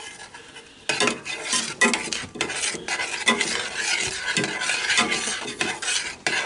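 Metal spoon stirring thick, chunky strawberry filling in a small metal saucepan, scraping and clicking irregularly against the pan, starting about a second in.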